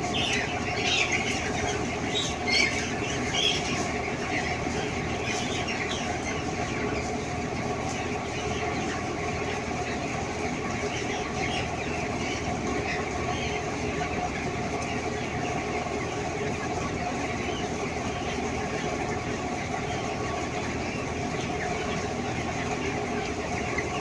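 A large flock of broiler chickens in a shed: a constant din of birds over a steady machine hum. A few louder, high peeps stand out in the first few seconds.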